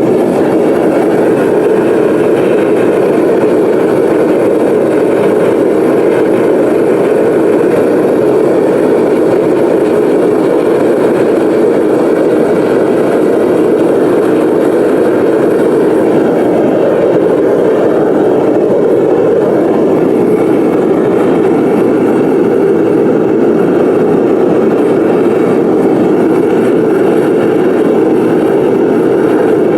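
Burner flame firing a kiln while it melts scrap brass: a loud, steady rushing noise that holds even throughout.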